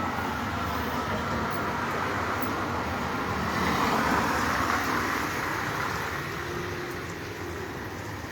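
Steady road traffic noise, with a passing vehicle that swells to a peak about halfway through and then fades.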